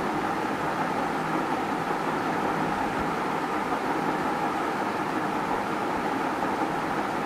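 Ceiling fan running: a steady, even noise of moving air, picked up by a clip-on lavalier microphone.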